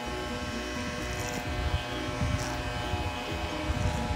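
Electric hair clipper buzzing steadily as it runs through a boy's short hair, with irregular low thumps through the second half.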